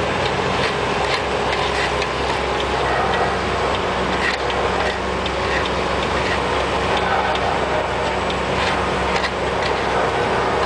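Diesel truck engine running steadily, with irregular sharp clicks and taps over it.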